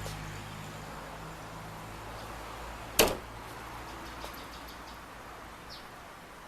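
A single sharp click about three seconds in, over faint steady background noise.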